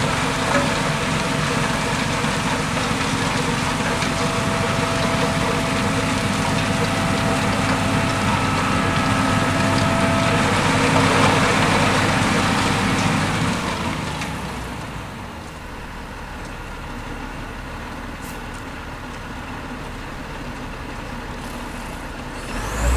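NICHIJO HTR202 rotary snowplow running under load, its auger and blower hurling snow up the chute: a loud, steady rush of noise with a faint whine over the engine. About fourteen seconds in the blowing dies away and the machine keeps running more quietly.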